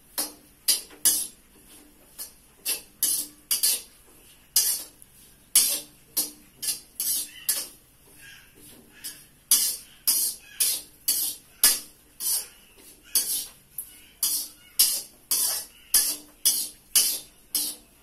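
Metal ladle scraping and knocking against a steel wok as ingredients are stirred over the gas stove: sharp, uneven clinks about one or two a second, easing briefly about halfway through.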